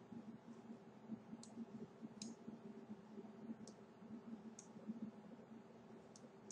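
Faint computer mouse clicks, five of them spaced out over several seconds, over a low steady hum.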